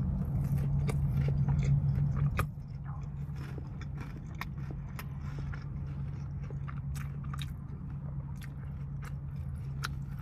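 Close-miked chewing of a chicken wing, with many small wet mouth clicks. Under it runs a steady low hum that drops in level about two and a half seconds in.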